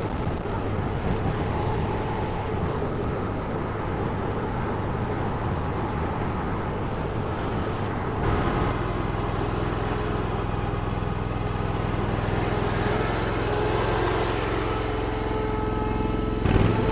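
Honda gasoline engine of a Derette DRT450 mini skid steer running steadily; about eight seconds in its note shifts to a steadier, clearer tone.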